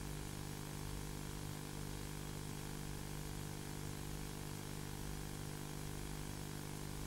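A steady low hum made of several stacked tones under an even hiss, unchanging throughout.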